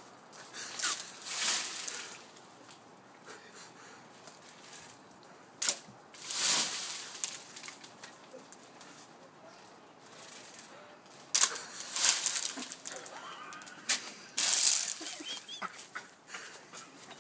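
Short bursts of rustling, five or so, each about a second long and a few seconds apart.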